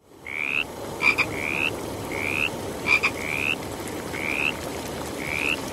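Frogs calling: a short, upward-sliding chirp repeats about once a second. Sharp double clicks come twice, over a steady low background hiss.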